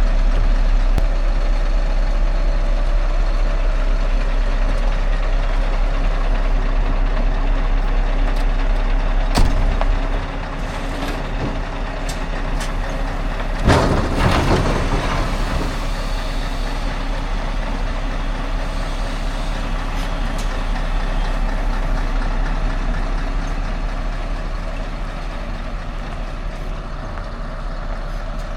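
Heavy diesel truck engine running steadily, its deep low rumble dropping off about ten seconds in. A sharp click comes just before that, and a loud burst of hissing compressed air, typical of an air brake, comes near the middle.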